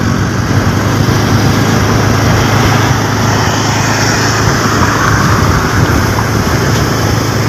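Steady road and wind noise from a moving vehicle travelling along a highway, with a constant low hum from its engine.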